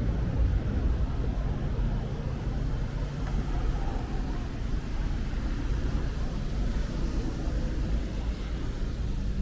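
Steady low rumble of city road traffic, with a faint even hiss of light rain over it.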